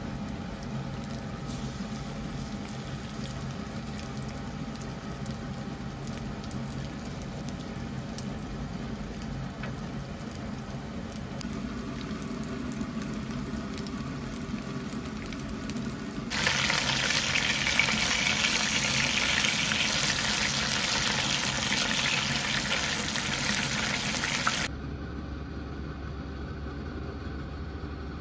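Flour-dredged chicken pieces shallow-frying in oil: a steady sizzle with small pops. About two-thirds of the way in the sizzle turns much louder and brighter for several seconds, then cuts off suddenly, leaving a low steady hum.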